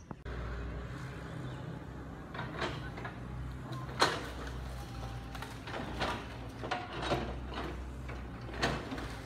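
Kobelco hydraulic excavator's diesel engine running steadily, with repeated sharp cracks and knocks as its bucket works through piled branches and bamboo debris; the loudest crack comes about four seconds in.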